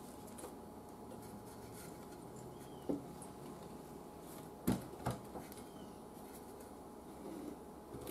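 Quiet room tone with a faint steady hum, broken by a few light knocks of parts being handled during reassembly: one about three seconds in and a louder pair about half a second apart near the middle.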